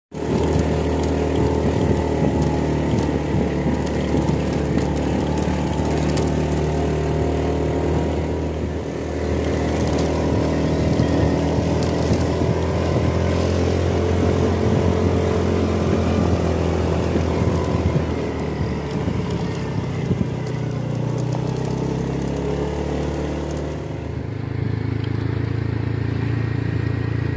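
A vehicle's engine running steadily while driving, with wind and road noise. The engine note changes about two-thirds of the way through and again near the end.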